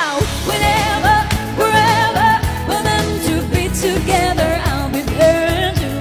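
Pop backing track with drums and bass coming in at full volume, with a woman singing a melody over it.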